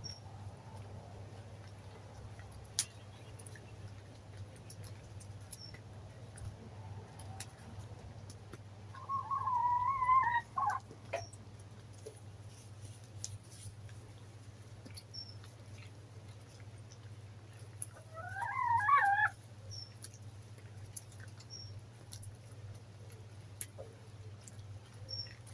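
Domestic hens calling twice, drawn-out wavering calls each lasting over a second, one about nine seconds in and one about eighteen seconds in, over a low steady hum with a few faint clicks.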